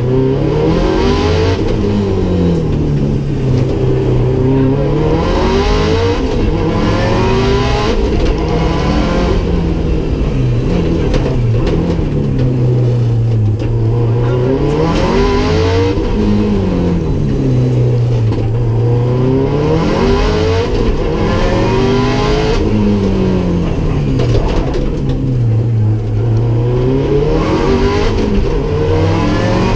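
Rally car engine heard from inside the cabin on a timed stage, revving hard under acceleration and dropping as the driver lifts and brakes for corners. Its pitch swings down and back up every three to four seconds.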